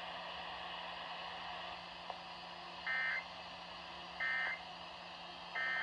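Three short bursts of Emergency Alert System data tones, the end-of-message code that closes an alert broadcast, each about a third of a second long and about 1.3 s apart, starting about three seconds in. A steady low hum and hiss lie underneath.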